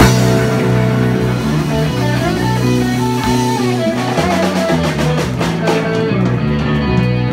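Live rock band playing, with guitar over bass and drum kit. It comes in with a loud hit at the start, then holds notes, and a lead line slides up and back down in the middle.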